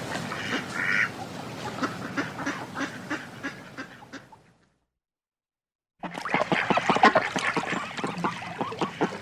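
Ducks quacking and splashing in water, with a couple of quacks at the start and many short splashes. The sound fades out about four and a half seconds in, drops to a second and a half of silence, then comes back suddenly with busier splashing and calling.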